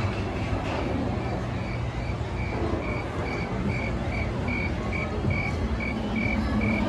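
Crickets chirping in the ride's bayou ambience, an even pulse of about two to three chirps a second, over a low steady rumble.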